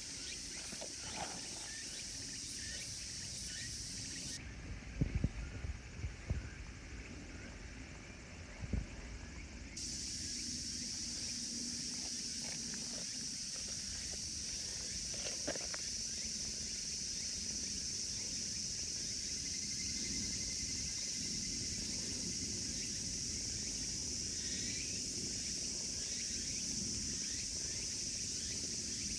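Steady high-pitched chorus of insects. It drops out for about five seconds near the start, when a few low thumps are heard.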